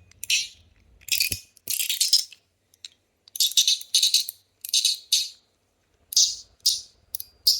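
Stonewashed titanium buckyball slider fidget being slid back and forth: short, bright metallic rattles as the ball runs along its track and ticks against the titanium, about nine strokes with brief pauses between.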